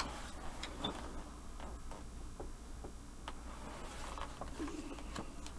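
Quiet room with a few faint, scattered clicks and taps from a rigid plastic card holder being handled.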